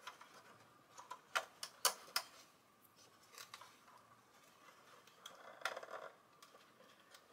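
Hard plastic model-kit parts clicking and tapping against each other as a plate is pushed into a 1/16 scale tank hull for a dry fit, with a softer scuffing of hands on the parts about two-thirds of the way through.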